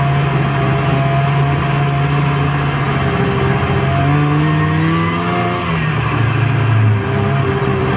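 Snowmobile engine running under way, heard from the handlebars. The engine note rises about four seconds in, dips around six seconds, then picks back up as the throttle is eased and opened again.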